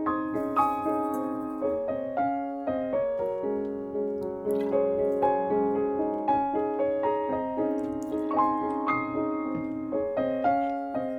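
Background piano music: a gentle melody of notes struck one after another, each ringing and fading.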